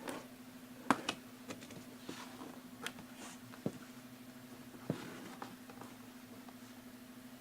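Box and packaging being handled: scattered sharp taps and clicks with soft rustling, over a steady low hum.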